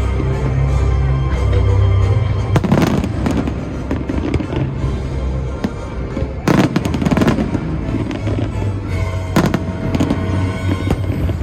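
Fireworks bursting in several clusters of sharp cracks and bangs, a few seconds in, around the middle and again near the end, over loud music with a deep steady bass.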